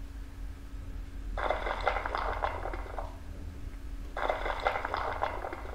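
Building-collapse sound effect from a PowerPoint demolition animation: crumbling, crackling rubble in two bursts, each about a second and a half long, the first about a second and a half in. A steady electrical hum runs underneath.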